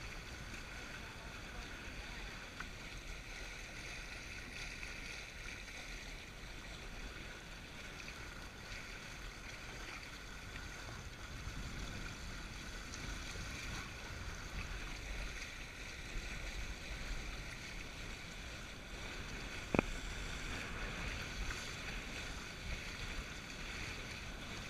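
Steady wash of water along the hulls of a Windrider 17 trimaran sailing in light wind, a little louder about halfway through. One sharp click about 20 seconds in.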